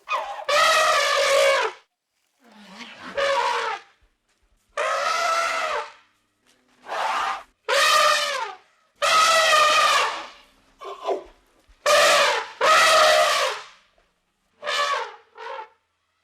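Elephant trumpeting: a series of about ten loud, brassy calls, each up to about a second and a half long, with short silent gaps between them.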